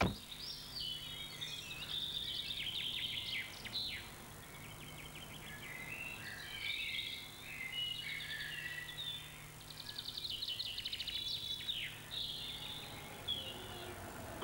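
A car tailgate shuts with a thump at the start, followed by wild birds singing with many chirps and rapid trills over a faint, steady low hum.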